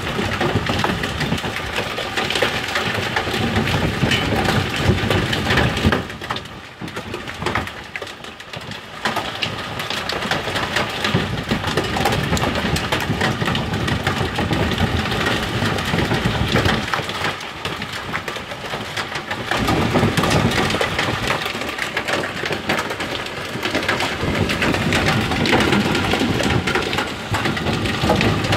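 Heavy hail pelting down, a dense clatter of countless hailstones striking hard surfaces. It eases off for a few seconds about a quarter of the way in, then comes back just as hard.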